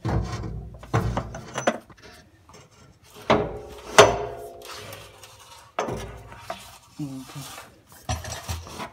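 Metal clunks and clinks from a driveshaft being slid out of the transmission and handled by hand: several separate knocks with a short ringing tail, the loudest about four seconds in.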